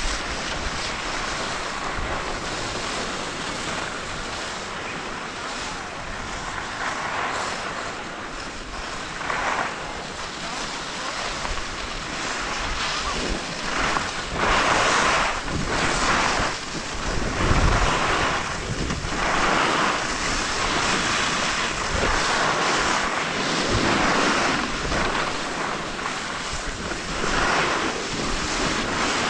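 Skis sliding and scraping over snow on a downhill run, with wind rushing over the microphone. The hiss of the skis swells louder several times in the second half.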